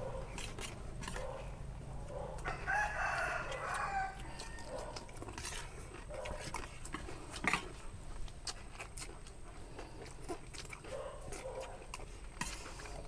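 A rooster crows once, a call of about a second and a half starting a little over two seconds in. Scattered short clicks sound before and after it.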